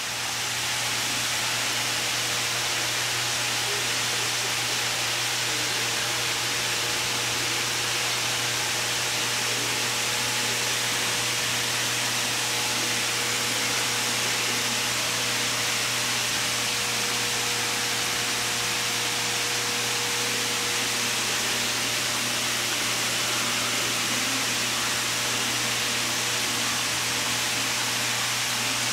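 Steady rushing water noise with a constant low hum beneath it.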